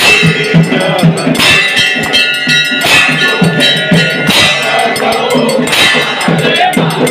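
Temple aarti percussion: a steady, quick drum beat with constant jangling bells, and a larger bell clanging now and then and ringing on.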